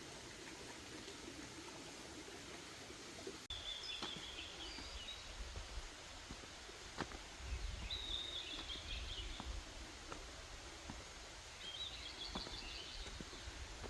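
A small songbird singing three short trilled phrases a few seconds apart, over a steady outdoor hiss with a low rumble and a few light clicks.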